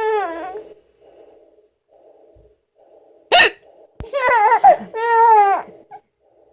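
A woman hiccups once with a short, sharp catch about three seconds in, and a baby laughs in high-pitched bursts, once at the start and twice right after the hiccup.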